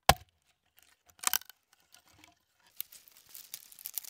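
A small forest axe strikes into a log once, sharply, just after the start, and the wood cracks apart about a second later. Scattered crackling and rustling of dry wood and twigs follows.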